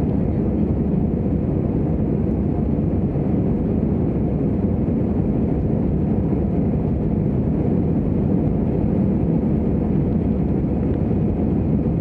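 Steady cabin noise of an Airbus A320-200 climbing after takeoff: a low, even engine rumble and airflow heard inside the cabin by the window.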